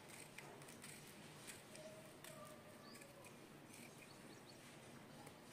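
Near silence: faint room tone with a few soft clicks and a couple of brief, faint chirps.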